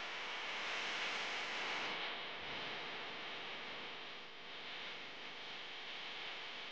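Steady rushing wind and road noise on a camera microphone riding along on a moving bicycle in street traffic.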